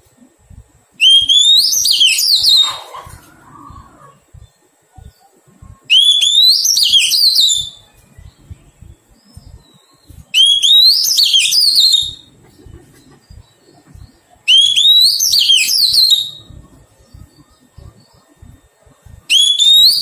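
Oriental magpie-robin singing the same short phrase five times, roughly every four to five seconds: each phrase opens with a rising whistle and breaks into a quick tumble of high notes, the last one starting near the end.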